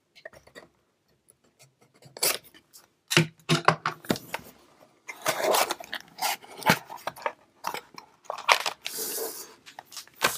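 A utility knife slitting the tape on a small cardboard box, then the cardboard flaps being opened and a plastic bag of contents crinkling as it is lifted out: a string of irregular scrapes, clicks and rustles, sparse at first and busier from about two seconds in.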